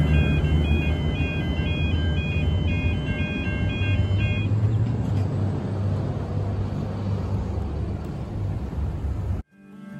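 Level crossing warning bells ringing in a rapid, repeating two-tone pattern that stops about four and a half seconds in, over the low rumble of a V/Line VLocity diesel railcar pulling away. The sound cuts off sharply near the end and guitar music begins.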